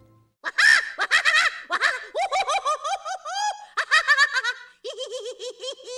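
Hard laughter in a rapid string of short, high-pitched bursts that rise and fall in pitch, starting about half a second in.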